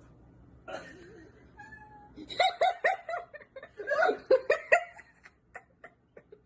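A cat gives one short meow, then a quick run of short, pitched meows at about six a second. A few faint ticks follow near the end.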